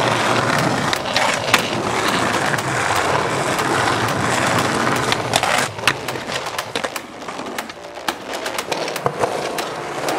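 Skateboard wheels rolling on concrete, with a string of sharp clacks from the board popping, landing and hitting a ledge. The rolling drops quieter about two-thirds of the way through, then more clacks follow near the end.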